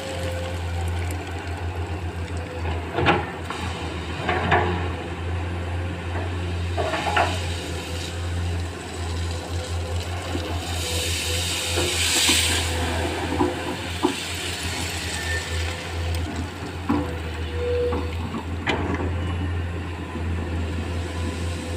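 Komatsu PC210 hydraulic excavator diesel engines running steadily at work, with occasional short knocks and a brief hiss about twelve seconds in.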